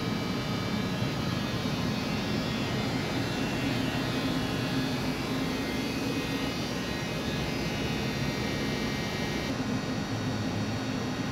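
VDF DUS 800 CNC lathe running on a test run: a steady machine hum with a whine of several high, steady tones.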